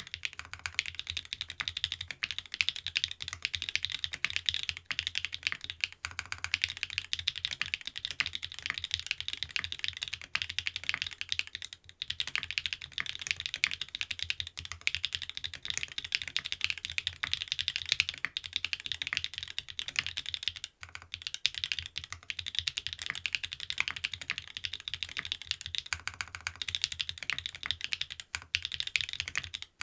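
Fast continuous typing on a custom mechanical keyboard with stock SW x Gateron Deepping switches, aluminium plate and PBT keycaps: a dense stream of keystroke clacks with a deep low thud under each press, broken by brief pauses a few times.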